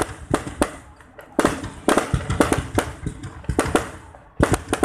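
Fireworks going off in rapid clusters of sharp bangs and crackles, with a short lull about a second in and another near the end.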